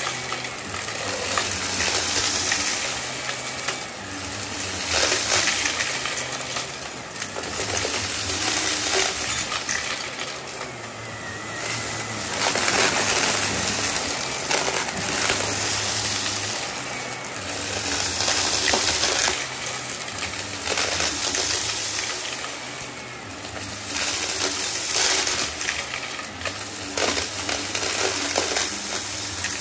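Shark upright vacuum running on a thick shag rug, its motor whirring while small bits of debris crunch and rattle up through the floor head and into the canister. The sound swells and dips every couple of seconds with the push-and-pull strokes.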